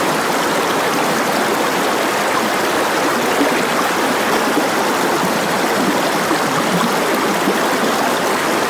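Steady rushing of running water, an even noise that carries on without a break.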